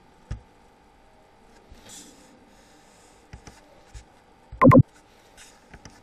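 Desk-microphone room noise with a faint steady whine, a few soft clicks and knocks from handling a mouse or keyboard, and one short, loud burst of a man's voice, like a throat-clear, about four and a half seconds in.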